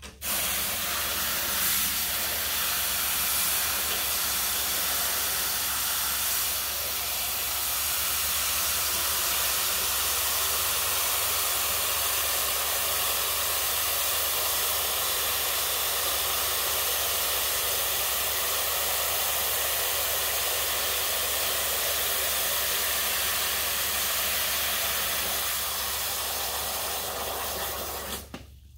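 Water from a hose spray nozzle pouring into an aquarium canister filter to refill it: a steady hiss and splash that cuts off suddenly near the end when the nozzle is shut.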